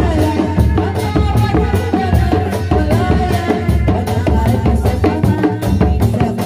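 Sundanese reak ensemble playing: large barrel drums beaten with padded mallets in a steady, driving beat, under a wavering, reedy tarompet (Sundanese shawm) melody.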